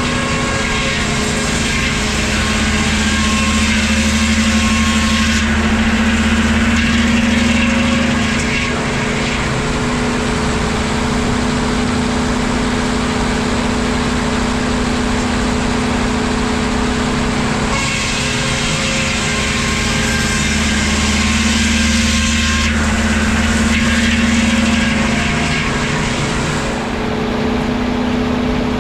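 Vintage woodworking machinery running with a steady hum. Twice, about 18 seconds apart, a louder, hissier stretch of about five seconds comes as lumber is fed through and cut.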